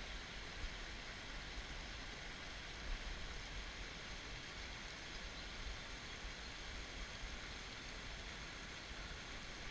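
Small stream rushing over rocks in a shallow riffle: a steady, even rush of water.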